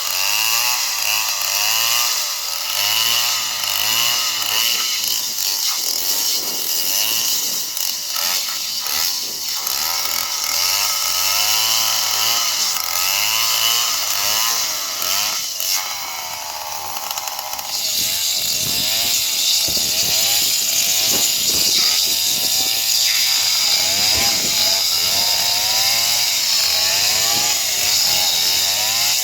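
Stihl chainsaw cutting into a palm trunk, its engine pitch sagging and recovering over and over under load, with a brief quieter, steadier stretch just past the middle.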